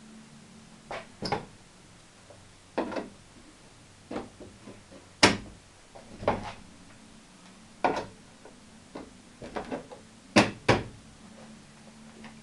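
Board panels of a home-made folding table knocking and clunking as they are swung and handled to unfold it: irregular knocks, with a sharp bang about five seconds in and two more close together near the end.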